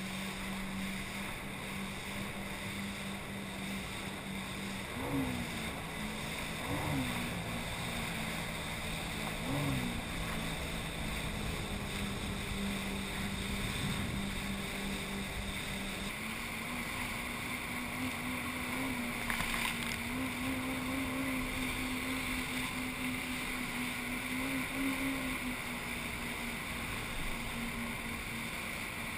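Yamaha FX HO WaveRunner's four-stroke engine running at cruising speed under a steady rush of wind and water spray. The drone rises briefly in pitch three times in the first third, then settles slightly higher from about halfway through.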